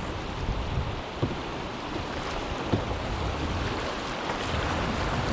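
Steady rushing of river rapids, with wind buffeting the microphone in a low rumble and a couple of brief knocks.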